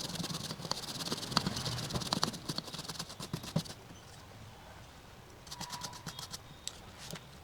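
Brush scrubbing a circuit board wet with solvent: a quick run of short scratchy strokes, a pause, then a few more strokes near the end.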